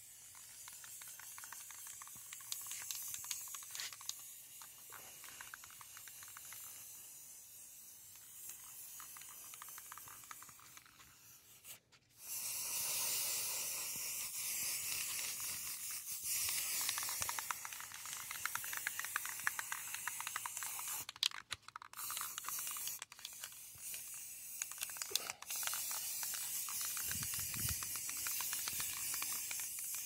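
Aerosol spray-paint can hissing as white paint is sprayed onto a metal PC case side panel in long passes. The hiss is softer at first, then much louder from about halfway through, with a few short breaks where the nozzle is let go.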